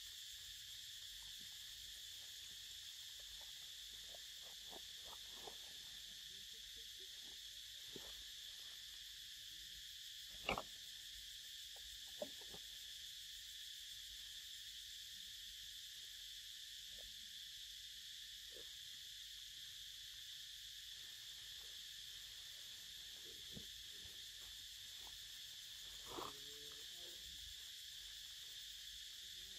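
Steady high-pitched insect buzz, with soft scattered rustling of dry leaves and mango as a baby monkey feeds. There is a sharp click about ten seconds in, another about two seconds later, and a short louder rustle near the end.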